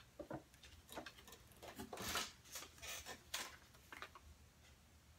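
Faint paper rustling and crinkling as a small paper card is handled, in a string of short scratchy rustles, the loudest about two seconds in and again a little after three seconds.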